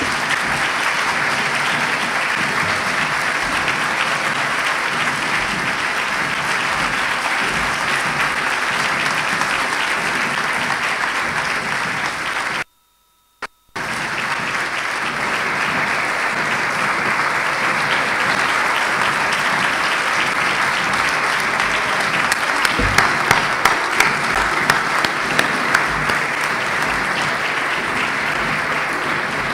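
Audience applauding steadily in a large hall, a long, dense round of clapping. About halfway through the sound cuts out completely for about a second, then the applause carries on.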